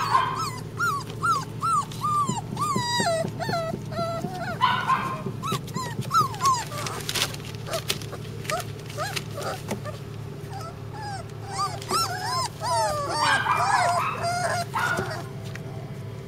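Flat-coated retriever puppies whimpering and squeaking: many short, high, rising-and-falling whines one after another, with a few harsher, rougher cries in between.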